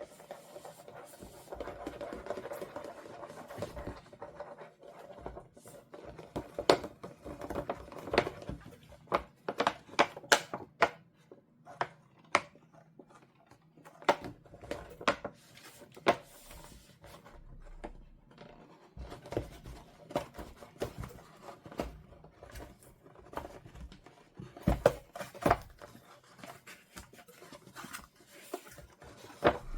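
Doll packaging being handled close up: plastic and cardboard rubbing and crinkling, with many scattered sharp clicks and taps.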